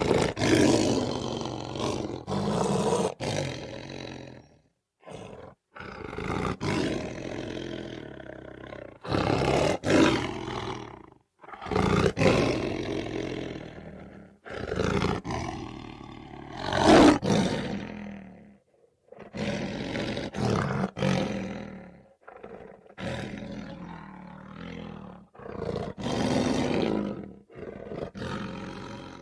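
Lion growling and roaring in a series of about ten rough bouts, each a few seconds long, broken by short gaps and abrupt cuts.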